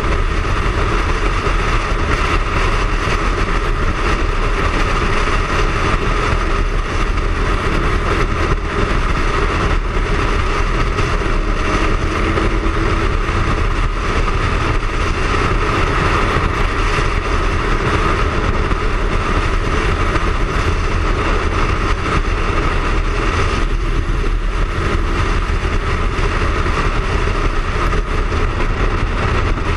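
Triumph Speed Triple's three-cylinder engine running steadily at cruising speed under a steady rush of wind over the bike-mounted camera.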